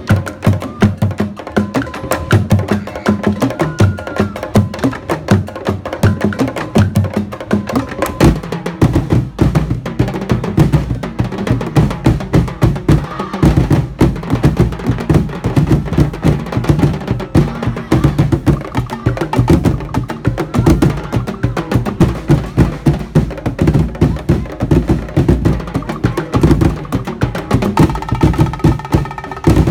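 Percussion music with drums, beating a fast, steady rhythm of hits; the low drums become heavier about eight seconds in.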